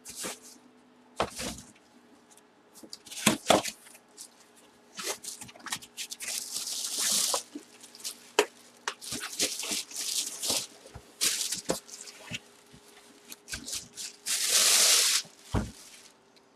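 A cardboard box being opened and a full-size football helmet lifted out by hand: scattered knocks and clicks of cardboard handling, with several rustling bursts of packing, the longest and loudest shortly before the end.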